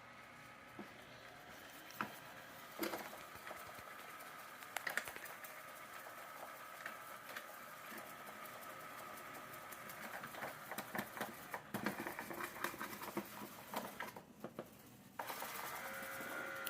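Light 'N' Easy robot vacuum running, its small motor humming steadily with many light clicks and rattles. Near the end it shifts to a louder, steadier hum.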